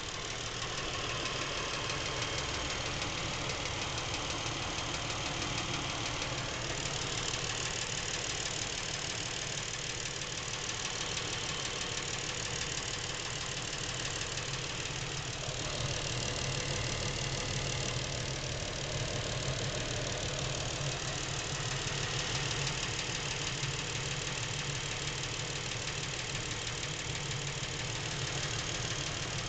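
Lincoln MKX's Ford 3.7-litre V6 idling steadily with a rapid, continuous knock running through it. The owner reports the knock has been there since new and seems to be getting worse; Lincoln calls it normal.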